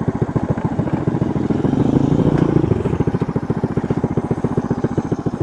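Yamaha Sirius FI motorcycle's single-cylinder four-stroke engine running at low revs in an even pulsing beat, swelling briefly about two seconds in.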